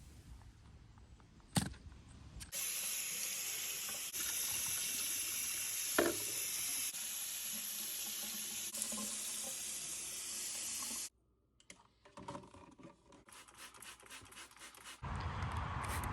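Pressure washer spraying water onto pavers: a steady hiss that starts a couple of seconds in and cuts off abruptly after about eight seconds, followed by quieter scraping noises.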